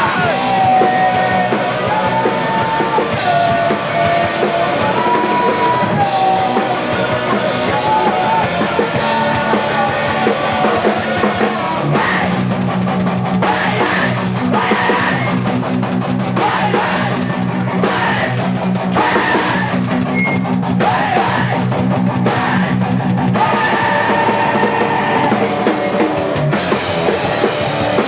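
Rock band playing live with drum kit and electric guitar: a lead melody over the band at first, then heavy sustained chords from about twelve seconds in.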